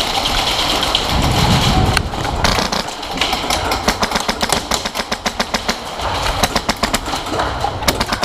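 Airsoft electric guns firing in bursts of rapid sharp clicks, several bursts in a row, with a low rumbling noise in between.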